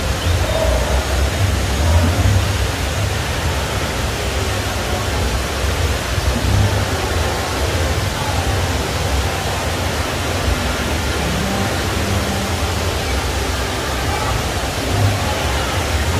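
Steady rushing background noise with a strong low rumble and no clear events: the din of a large indoor space.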